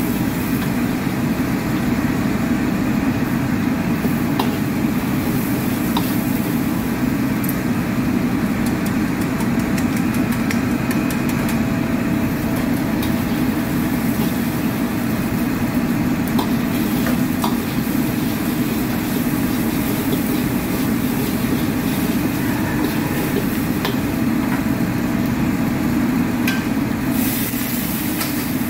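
A commercial gas wok burner runs at full flame with a steady low rumble, while a metal ladle scrapes and clanks against the wok during stir-frying. The hiss grows louder near the end as greens go into the hot wok.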